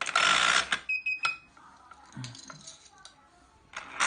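A harsh noisy burst of under a second, then sharp metallic clicks and a couple of short high electronic beeps from an RFID access-control reader and electric lock, with another click near the end.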